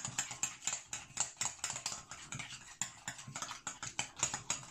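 Glue and bicarbonate of soda slime mixture being beaten in glass bowls: rapid, irregular clicking and scraping against the glass.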